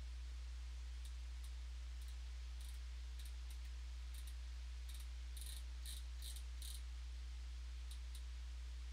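A steady low hum with scattered small, sharp clicks over it, a quick run of several clicks a little past the middle.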